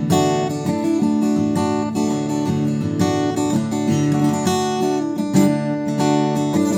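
Newtone Gypsy Road GA 45 transacoustic guitar, solid spruce top and Indian rosewood body, played unplugged: its own acoustic sound with chords changing about every half second.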